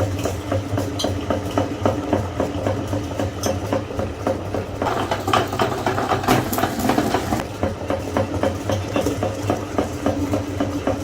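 Meat grinder grinding candy: a steady mechanical hum with a fast, even clicking at several clicks a second.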